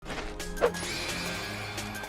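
Intro music with a sudden hit sound effect about half a second in, its pitch dropping quickly.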